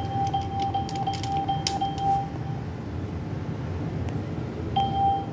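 ATM keypad beeping as the PIN is keyed in: a rapid run of short beeps over the first two seconds, one per key press, then a single beep near the end. Faint clicks of the keys come between them.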